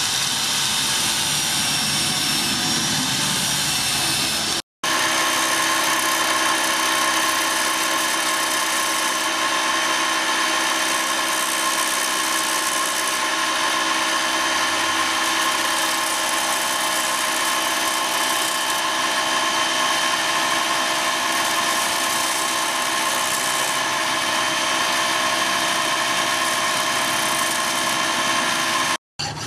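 An angle grinder with a sanding pad runs against the steel hammer head for about five seconds. After a brief break, a large grinding wheel runs steadily with an even whine while the hammer head is held against it.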